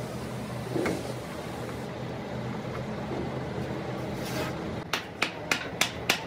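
Hammer tapping a punch on a Hino truck's steering gear box: a quick run of about five sharp taps, some three a second, starting about five seconds in. A steady low hum lies underneath, and there is one duller knock about a second in.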